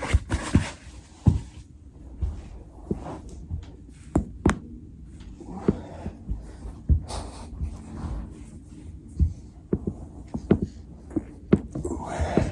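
A body pressing and rolling on a foam roller: irregular low thumps with several sharp cracks of joints popping, the clearest about four and a half seconds in.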